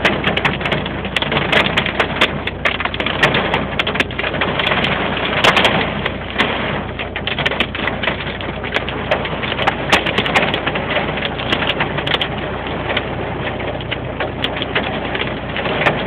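Hailstones falling: a steady, dense clatter of many small impacts, with sharper individual hits standing out throughout.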